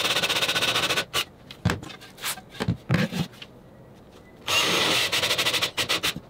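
Cordless drill boring a 1-inch Forstner bit into the mitered corner of a wooden picture frame, a fast chattering cut that stops about a second in and starts again on the next hole near the end. A few knocks come in the pause between the two holes.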